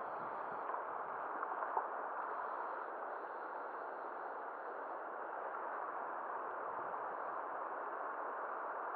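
Steady rush of a fast-flowing river rapid, with a few faint ticks about a second and a half in.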